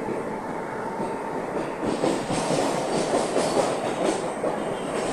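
ICF-built electric local train running, heard from inside the coach: a steady rumble of wheels on the track that grows louder and harsher about two seconds in, with rapid rattling clicks.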